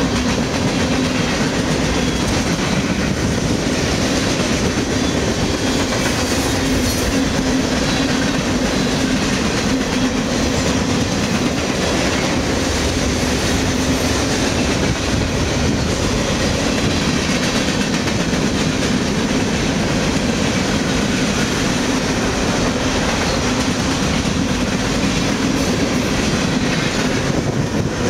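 Freight cars of a long CSX freight train rolling past close by: a steady loud rumble with wheels clacking over rail joints. The noise changes near the end as the last cars go by.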